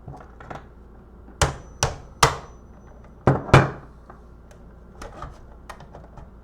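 Hammer blows on the casing of a blood pressure monitor being forced open: three sharp strikes in quick succession about a second and a half in, then two more around three and a half seconds, with a few light knocks after.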